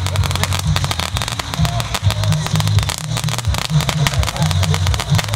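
Magic Whip ground firework burning on its stand with a fast, continuous crackling of many sharp little pops, over a low fluttering rumble.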